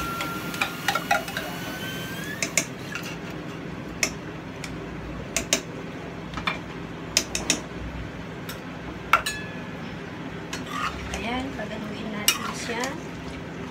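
A metal spoon clinking and scraping against an opened tin can and a cooking pot as canned minestrone soup is scooped into the stew and stirred in, with sharp irregular clinks every second or so.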